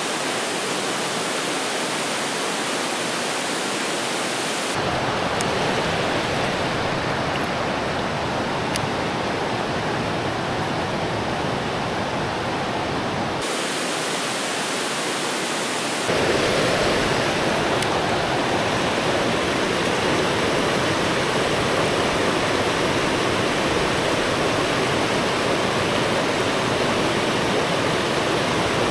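Steady rushing water of a river, a dense even hiss with no pauses. Its tone and loudness shift abruptly a few times, as at cuts between shots.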